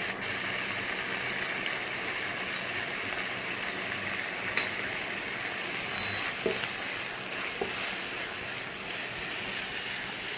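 Minced beef sizzling in a frying pan as its released liquid cooks off, stirred and scraped with a wooden spatula, with a few faint clicks.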